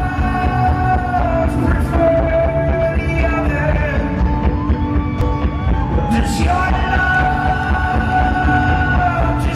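Folk-rock band with banjo, piano and bass playing live in an arena, recorded from the crowd: long held sung notes over a steady full band sound.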